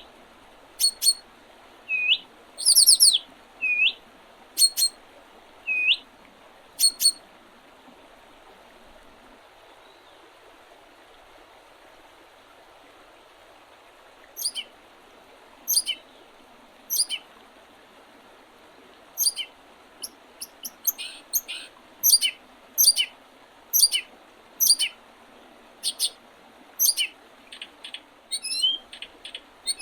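Small birds singing and calling in early spring: short, sharp, high notes, some as quick rising upslurs, in a run at first, a few seconds' pause, then a denser string of chirps over a faint steady hiss.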